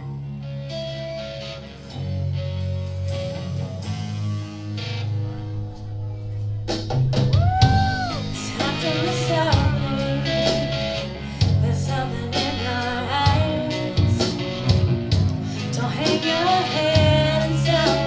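Live rock band playing a slow song: electric guitar with held notes at first, then about seven seconds in the drums come in and a woman sings over guitar and bass.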